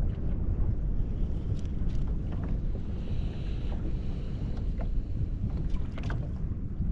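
Steady low wind rumble on the microphone with water noise around a fishing kayak, and a few faint clicks and taps.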